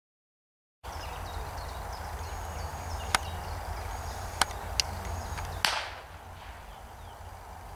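Wind rumbling on the microphone over an open field, with small birds chirping, starting after a second of silence. Four sharp cracks come partway through, the last followed by a brief rush of noise.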